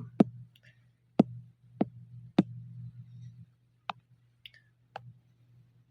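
Computer mouse clicking: about six sharp, separate clicks at irregular intervals over a steady low hum.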